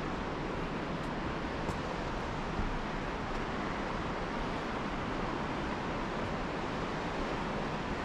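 Steady rushing of the Kootenai River's falls and rapids, an even hiss without pitch, with a few faint ticks in the first few seconds.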